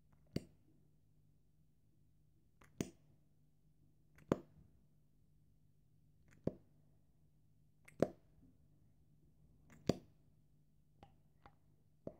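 Short, sharp wet clicks or plops, one every second or two, from a lip-gloss wand being dipped into and pulled back out of its tube while gloss is layered on. A faint steady hum sits underneath.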